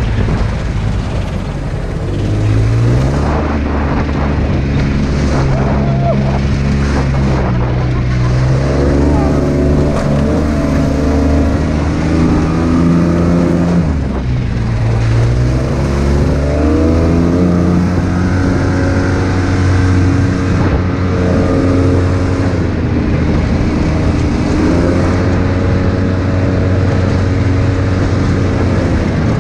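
Side-by-side UTV engine running under way on a dirt trail, its pitch rising and falling with the throttle. Near the middle it drops sharply and then climbs again, over a steady rush of wind and tyre noise.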